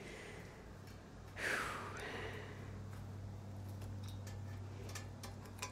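A short breathy whoosh, falling in pitch, about a second and a half in, then a few faint clicks and taps from hands working the fittings of a homemade rocket-engine test stand, over a steady low hum.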